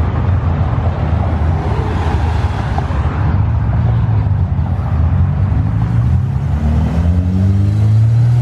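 Car engines running as cars pull away past the roadside, with a low steady rumble and traffic noise. In the last few seconds one engine revs up, its note rising as it accelerates.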